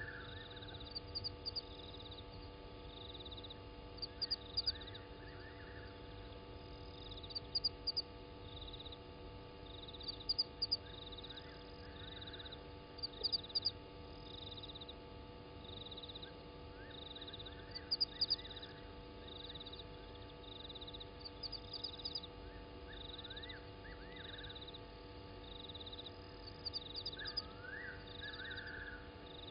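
Night-time animal chorus of a high, regular chirping about once a second, with bursts of sharp clicking every few seconds and occasional squeaky rising-and-falling calls. A steady electrical hum and low rumble run underneath.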